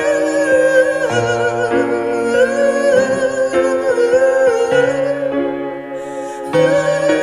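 Live music: slow piano chords under one long wavering held note, with the low notes changing every second or so.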